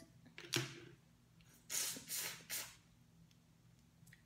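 Fingers picking at a cooked Dungeness crab's body shell and innards: a sharp crack about half a second in, then three short wet, hissing bursts around the two-second mark.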